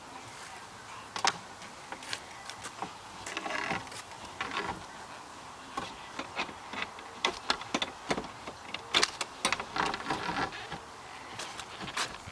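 Lockout tools being worked in at the top of a 1998 Mercury Mystique's door to open it without a key: scattered clicks, taps and scrapes against the door frame and glass, with a few short rattling bursts.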